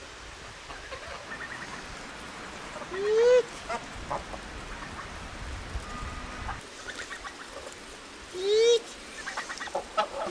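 Flock of grey domestic geese honking while they feed: two loud honks about five seconds apart, with softer short calls between them.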